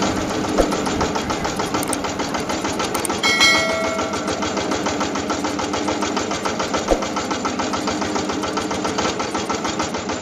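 Small engine running steadily with a fast, even chug. A short bright ding rings out about three seconds in.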